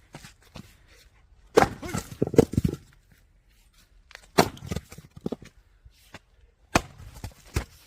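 Firewood being split: a run of sharp wooden knocks and cracks, a close cluster of them early on, then single strikes at irregular intervals.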